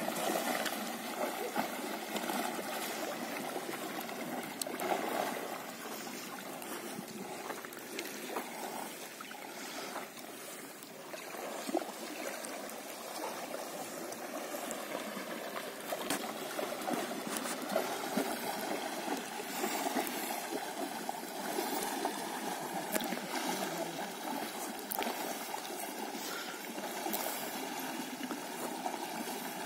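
Continuous sloshing and churning of river water as horses wade through it, with small splashes here and there.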